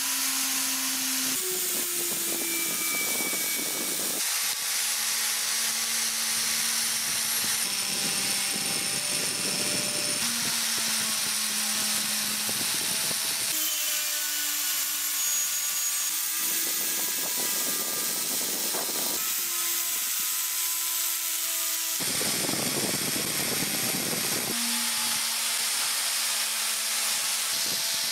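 Angle grinder with a cup wire brush running against a rusty kukri blade, stripping the rust: a steady motor hum under the hiss of the spinning wire bristles. The hum changes pitch abruptly every few seconds.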